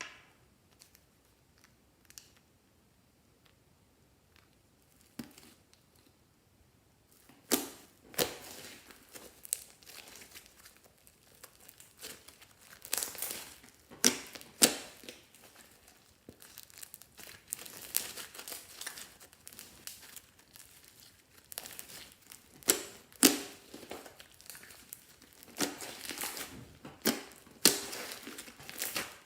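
Plastic packaging being crinkled and handled, in irregular crackling rustles that begin about seven seconds in after a near-quiet stretch with a few faint clicks.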